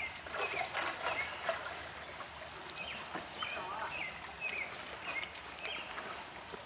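Birds chirping in short repeated calls over the steady rush of a shallow stream, with a few light knocks.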